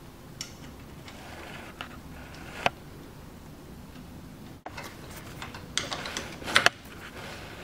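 Light clicks and knocks of mounting-bracket parts being handled and fastened to square tubing. A few scattered clicks come in the first three seconds, then a quicker cluster of knocks around the middle of the second half.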